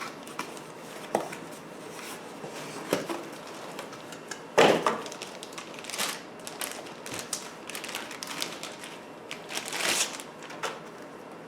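Packaging being handled during an unboxing: irregular rustles, scrapes and knocks of cardboard and plastic as the batteries are lifted out, with one sharp knock about halfway through and a longer scraping rustle near the end.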